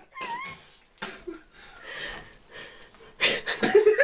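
A cat gives one short meow that rises and then levels off, near the start. Loud laughter breaks out a little over three seconds in.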